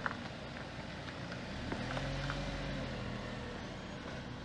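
Honda Accord engine running smoothly after its mass airflow sensor was cleaned to cure misfires on cylinders 2 and 3; its note rises a little about a second and a half in, then holds steady.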